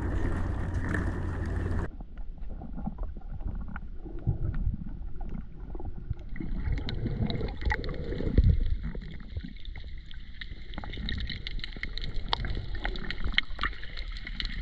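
Wind buffeting a GoPro microphone above the sea for about the first two seconds. Then it cuts to the muffled sound of water around the submerged camera, with irregular swishes and many small scattered clicks and crackles.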